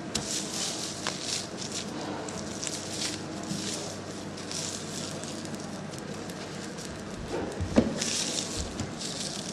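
Rolling pin working a sheet of dough thin on the work surface: a soft, repeated swishing and crackling of the strokes, with one knock a little before the end.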